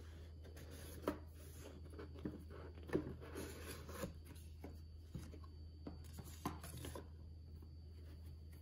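Cardboard packaging being handled: a printed card sleeve slid and lifted off an action-figure box, with sliding, rubbing and a few light knocks, the sharpest about a second in and about three seconds in. A steady low hum lies underneath.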